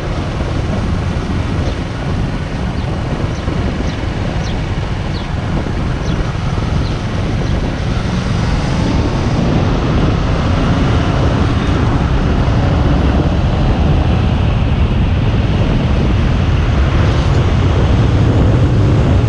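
Motorcycle riding along a road: wind rushing over the camera's microphone with the engine running underneath, the rush growing a little louder toward the end.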